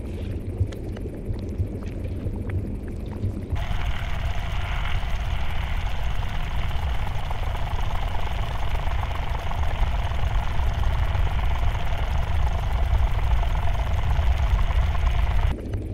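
Ambient sound design of an animation soundtrack: a deep, steady low rumble. About three and a half seconds in a steady hiss joins it, and it cuts off sharply near the end.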